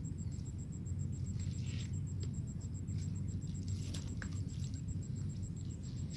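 Steady outdoor background noise: a constant low rumble with a few faint high chirps and ticks, and a fast, even, high-pitched pulsing throughout.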